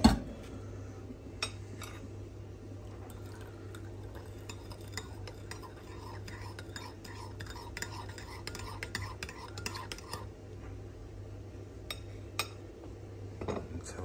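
Metal teaspoon stirring tea in a china cup, with light clinks against the porcelain that become a quick, even run of clinks in the middle. Two sharper clicks near the end as the spoon is laid on the saucer.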